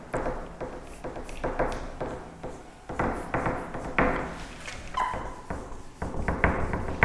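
Whiteboard duster rubbing across a whiteboard: a run of short scrubbing strokes, roughly one or two a second.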